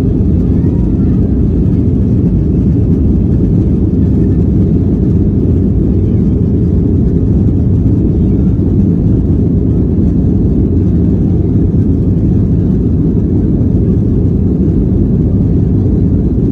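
Steady, loud low rumble inside the cabin of a Boeing 737-800 as it rolls along the runway, made up of its CFM56 jet engines and the wheels on the concrete.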